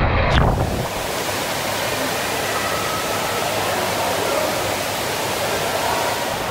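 Steady, even rushing-water hiss in an indoor water park hall, with faint distant voices. In the first half second a low rumble of water rushing through an enclosed slide tube cuts off abruptly.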